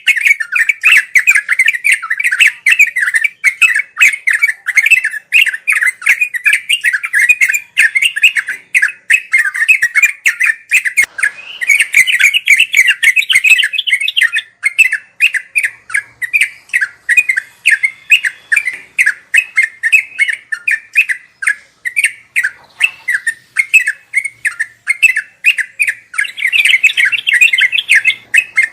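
Yellow-vented bulbul (trucuk) singing a rapid, unbroken run of chattering notes, the fast 'ngeropel' song. The song swells louder and fuller about twelve seconds in and again near the end.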